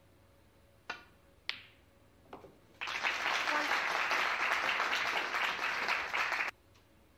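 Snooker shot: the cue tip clicks on the cue ball, then a sharper click as the cue ball strikes an object ball, and a couple of softer knocks of the balls. An audience then applauds for about four seconds, and the applause cuts off suddenly.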